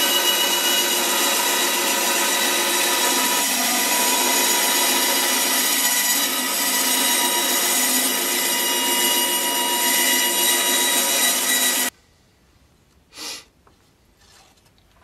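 Bandsaw running and cutting through a thin softwood board: a loud, steady whine with the hiss of the blade in the wood, which cuts off suddenly about twelve seconds in. A single short knock follows about a second later.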